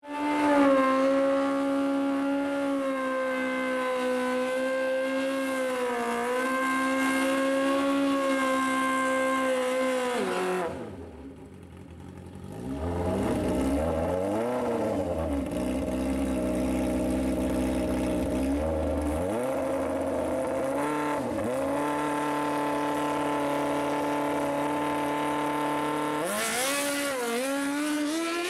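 Nitrous-injected Suzuki GSX-R1000 drag bike's inline-four engine held at steady high revs for about ten seconds, then dropping to a low, uneven idle with throttle blips. Later it revs up and holds steady, and near the end the revs climb sharply as the bike launches and pulls away.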